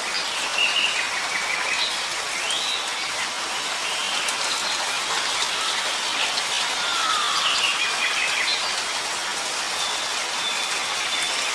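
Nature ambience: a steady hiss of rain, with birds calling over it in several short whistled notes that glide up and down, including a lower falling call about seven seconds in.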